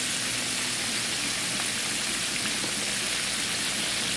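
Breaded carp pieces frying in a skillet of hot oil: a steady sizzle.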